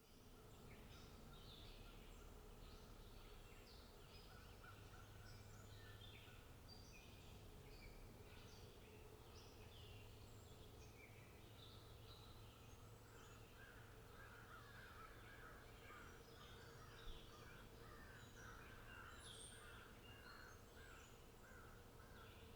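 Faint outdoor birdsong: many small birds give short, quick chirps throughout. About two-thirds of the way through, a run of rapid, lower repeated notes starts and runs for several seconds, and there is a single short tap about three-quarters through.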